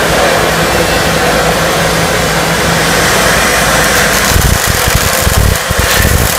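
MIG welding arc running steadily from a Millermatic wire-feed welder as a bead is laid, a dense, even hiss.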